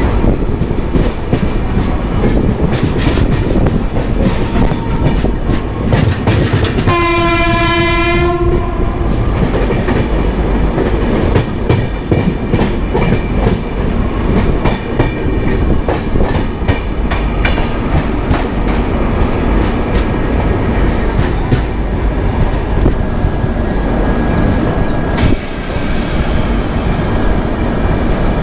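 Passenger train running into a station: a steady rumble of wheels on rails with a constant clatter of clicks over the rail joints and points. About seven seconds in, a train horn sounds one single-pitched blast of about a second and a half.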